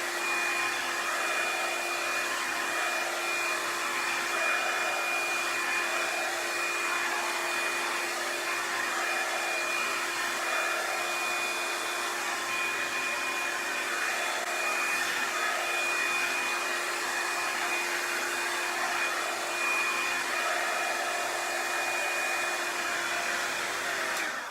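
Revlon One-Step hair dryer and styler, a paddle-brush blow dryer, running steadily on its low setting: a loud, even rush of air with a fixed high whine. It is switched off at the very end.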